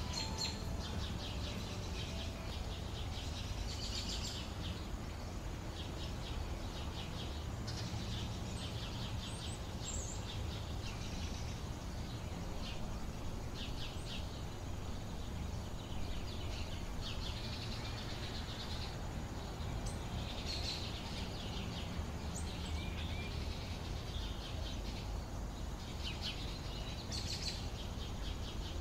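Small birds chirping in the background, short high phrases every second or two, over a steady low rumble of outdoor noise.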